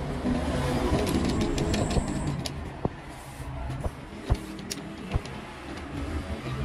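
Badminton racket stringing machine being handled: rustling and shifting of the racket and string, then a few single sharp clicks from its clamps and turntable, over a steady low background rumble.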